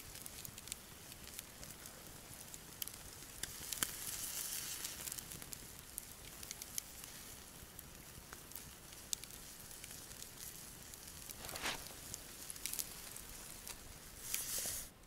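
Campfire embers crackling with scattered sharp pops while chicken and vegetables sizzle on a grill grate over them. The hissing swells louder about four seconds in and again near the end.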